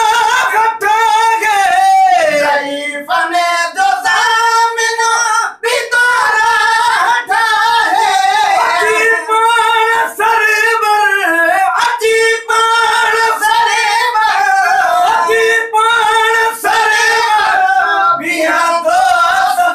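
Men singing together in a high, ornamented style, the melody wavering and gliding between held notes.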